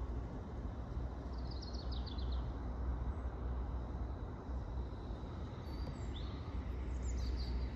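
Small birds chirping over a steady low rumble: a quick trill of high notes about a second and a half in, then a few short chirps near the end.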